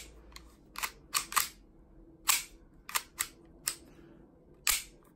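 About ten sharp, unevenly spaced clicks and taps from an Elite Force M9A3 CO2 airsoft pistol being handled: its polymer frame and metal parts knocking and clicking in the hands.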